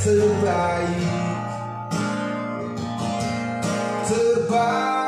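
Indonesian pop ballad with acoustic guitar, in an instrumental stretch between sung lines, played back through a Sony 1130 integrated amplifier and a pair of bookshelf speakers.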